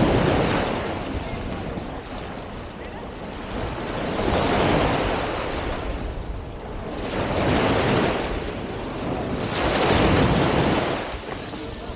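Surf washing onto a beach, the noise of the breaking waves swelling and fading four times, with a steady low rumble of wind on the microphone.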